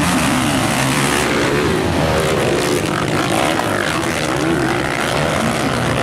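A pack of motocross dirt bikes racing, several engines revving at once with overlapping pitches rising and falling as the riders accelerate through a corner and over jumps.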